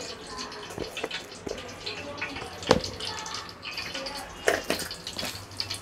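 Cinnamon sticks dropping into a hot aluminium pot onto whole cloves and cardamom in a little oil: scattered light clicks and crackles, with one sharper click near the middle and a quick cluster of them later on.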